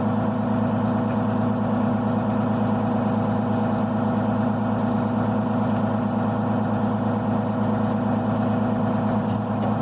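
Farm tractor's diesel engine running steadily at an even speed, a constant low drone.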